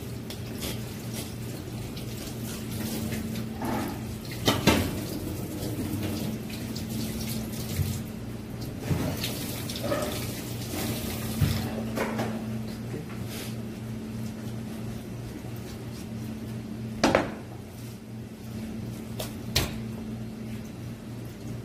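Water running steadily, like a tap into a sink, over a low steady hum, with a few sharp knocks about five seconds in and twice near the end.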